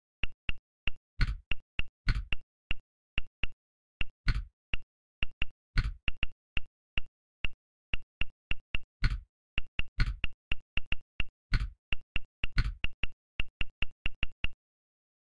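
Key-press click sounds from a phone's on-screen keyboard as Arabic text is typed. About three short, bright clicks a second come in an irregular stream, and now and then a heavier, deeper click sounds, typical of a space or delete key. The typing stops shortly before the end.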